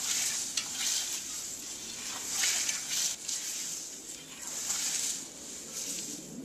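Scythe blade swishing through meadow grass, one mowing stroke about every second.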